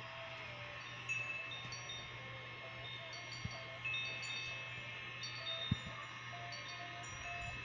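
Battery-powered air mattress pump running steadily with a low hum as it inflates the mattress, with scattered short, high ringing chime tones over it.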